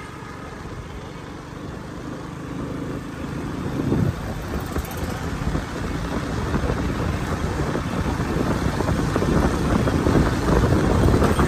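Road and traffic noise heard from a moving vehicle on a city street: a steady noise without clear tones that grows gradually louder.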